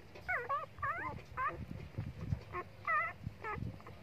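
Young puppies whimpering: a string of short, high cries that waver up and down in pitch, about seven over four seconds, some in quick runs.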